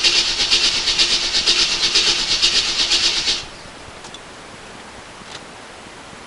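A new starter cranks a Chevy 5.7 V8, with a fast, even pulsing as the engine turns over, and does not catch. The cranking stops suddenly about three and a half seconds in.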